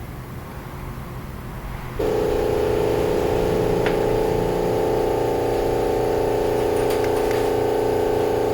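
A motor-driven machine starts about two seconds in and runs with a steady, even whirring hum.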